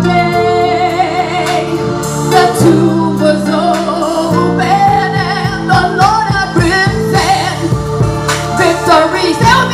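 Gospel music: a singer carrying a wavering melody over held organ or keyboard chords, with drum hits joining about halfway through.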